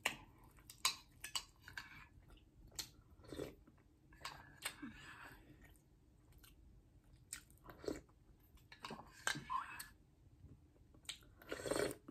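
Close-up mouth sounds of eating hot cocoa by the spoonful from a mug: chewing, with scattered short clicks.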